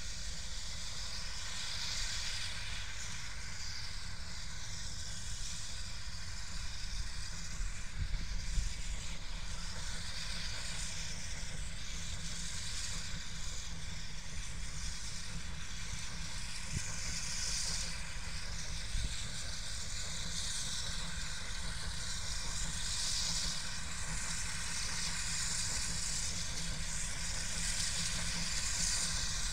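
Distant narrow-gauge steam locomotive approaching, heard faintly under a steady hiss and low rumble of wind on the microphone.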